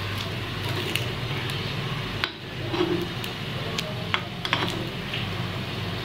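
Oil sizzling in the wells of a cast-iron kuzhi paniyaram pan on a gas flame, with a metal spoon clicking and scraping against the pan now and then as the cooked paniyarams are scooped out.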